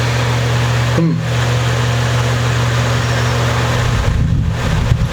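Steady mechanical hum with a hiss; its low part turns uneven about four seconds in.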